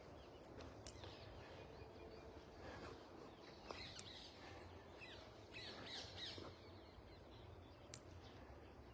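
Faint birds chirping over quiet outdoor ambience, with a cluster of quick high chirps in the middle and a few faint clicks.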